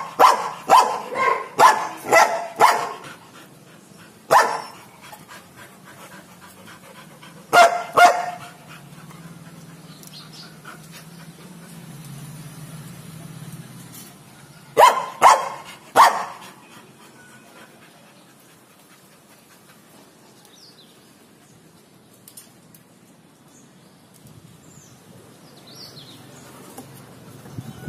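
Labrador retrievers barking behind a kennel gate: a quick run of about six barks at the start, then a single bark and a pair, three more near the middle, and no barking after that.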